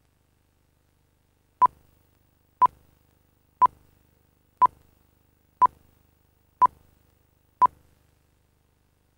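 Countdown-leader beeps: seven short, identical electronic beeps at one steady pitch, one each second, beginning about a second and a half in.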